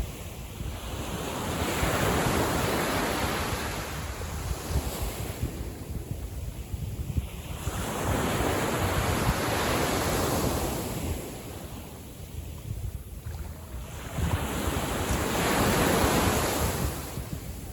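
Gentle sea waves breaking and washing up the beach, three surges about six to seven seconds apart, each swelling and then fading, with wind buffeting the microphone throughout.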